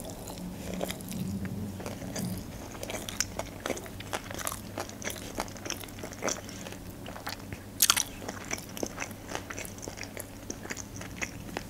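Close-miked chewing of a mouthful of sushi roll: a run of small wet clicks and crackles from the mouth, with one louder click about eight seconds in.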